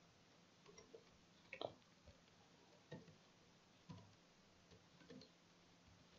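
Faint computer keyboard keystrokes: a handful of separate clicks spaced about a second apart.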